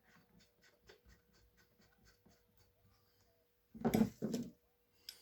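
Spark plug being screwed back into a chainsaw engine with a socket wrench: faint, rapid, even ticking for about three seconds, then two louder metallic clunks about four seconds in.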